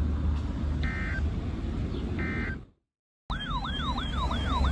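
Emergency Alert System end-of-message data bursts, short buzzy two-tone chirps, heard twice about a second and a half apart over a steady low rumble. After a brief cut to silence, a yelping siren sweeps up and down about three times a second.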